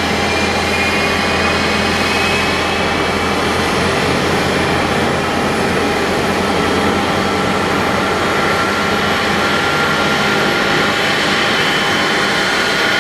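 Steady cabin noise inside a Boeing 777-300 on the ground: its jet engines and air-conditioning running, with faint whining tones that slowly shift in pitch. A low hum underneath drops away about ten seconds in.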